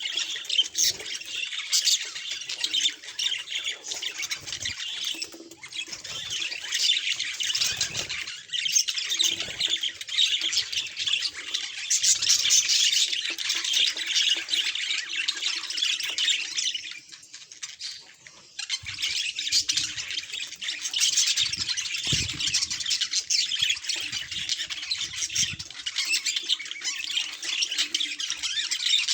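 Budgerigar chattering and warbling: a fast, dense stream of high chirps and scratchy squawks, with a short pause a little after halfway.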